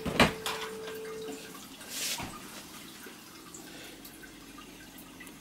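A sharp metallic knock a moment in and a smaller one just after, then a soft scrape and click about two seconds in: a metal spoon and the metal baking tin as cut rounds of sponge cake are prised out.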